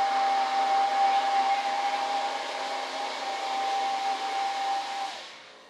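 Small electric blower motor running steadily with a rushing airflow and a whine. It cuts off about five seconds in.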